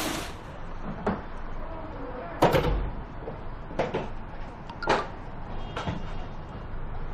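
Five sharp knocks and thuds spaced about a second apart, the second the loudest with a low thump under it, like doors or cupboards being handled.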